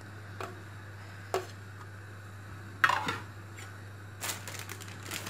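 Kitchen handling sounds on a granite countertop: a few light clicks and one louder knock, with a short ring, about three seconds in, as a plate or dish is set down. A steady low hum runs underneath.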